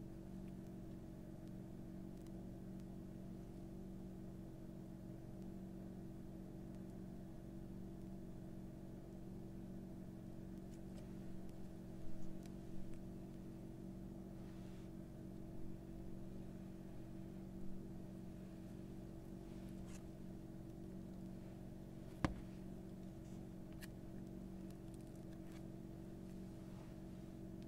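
A steady mechanical hum of several fixed pitches runs throughout, with a few soft squishy noises of slime being stretched and handled partway through and a single sharp click late on.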